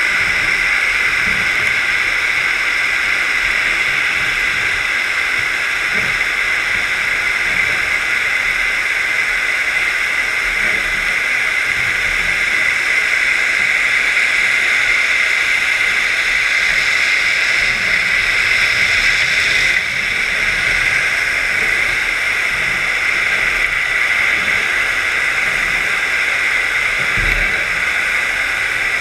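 Steady underwater hiss and rush picked up by a GoPro in its housing on a scallop dredge as it is towed along the seabed, with a few faint low knocks.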